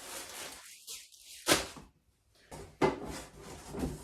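Handling noise as animatronic parts and clothing are moved about: rustling with two sharp knocks, the louder one about a second and a half in and another near three seconds.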